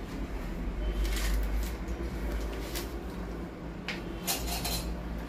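A few brief rustling and knocking handling noises on a kitchen counter, over a steady low hum.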